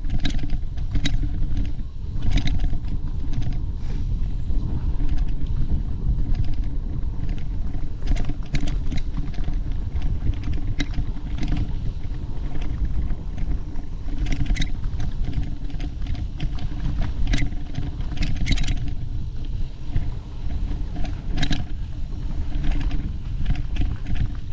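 Mountain bike on a dirt singletrack trail: a steady low rumble of wind on the microphone and tyre noise, broken by scattered sharp knocks and rattles as the bike goes over rough ground.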